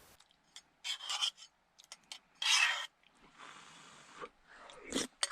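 Someone eating a bowl of noodles: several short rasping noises and one longer, fainter one.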